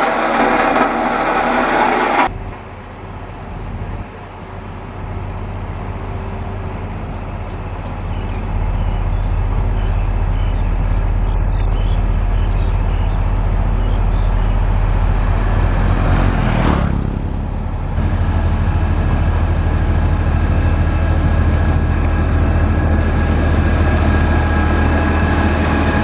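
Heavy diesel engines of road-building machines running steadily: a LiuGong vibratory roller at first, then a Mitsubishi motor grader spreading gravel. The sound drops abruptly about two seconds in and settles into a low, steady engine hum that grows louder later on.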